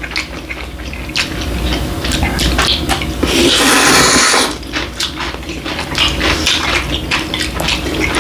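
Noodle slurping and wet chewing of saucy bibim ramen, with many short smacks and one long, loud slurp about three and a half seconds in.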